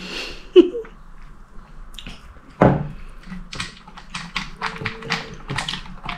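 A person eating close to the microphone: a dull knock about two and a half seconds in, then a quick run of short taps and clicks from spoon and mouth.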